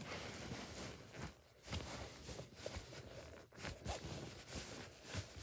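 Hands squeezing and rubbing an orange foam squishy toy: a soft, scratchy rustling that swells and fades in uneven strokes.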